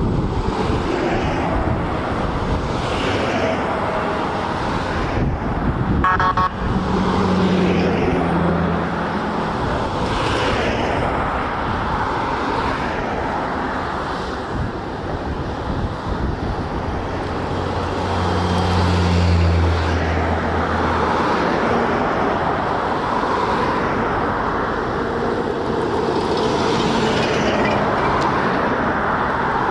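Road vehicles passing, with a low tone held for about two seconds, twice.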